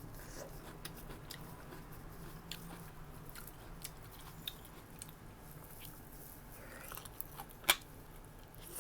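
A person chewing and biting food, with scattered small clicks and one sharper click near the end.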